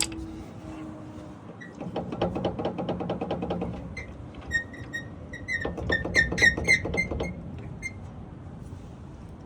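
Metal-on-metal work on a differential: a run of rapid, even clicking for about two seconds, then a cluster of sharp metallic clinks that ring briefly, as a part that is wedged tight is worked at by hand and with tools.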